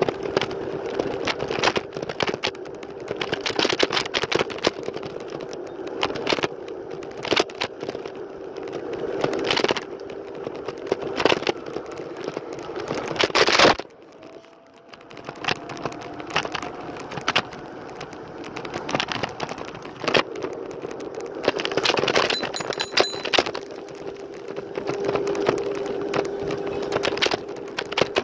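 Lime electric scooter in motion: a continuous rattle and clatter as it runs over the street, with a steady faint motor whine underneath. The noise drops away briefly about halfway through, then picks up again.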